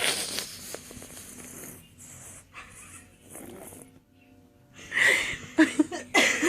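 A person's breathy, wheezing exhalations. Near the end come a few short, breathy voiced sounds.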